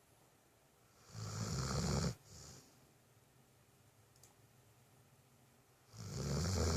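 A sleeping dog snoring: two loud snores about five seconds apart, each lasting about a second. The first is followed by a short, softer breath.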